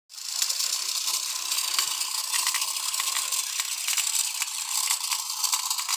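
Small solar-powered toy boat motor running steadily, spinning its plastic propeller, with a whirring buzz and many small rattling clicks from the plastic parts.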